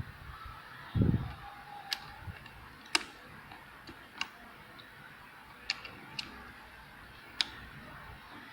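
Single keys pressed one at a time on a Leopold 750R keyboard with linear Cherry MX Red switches: about six sharp clicks at irregular gaps of roughly a second. A heavier low thump comes about a second in.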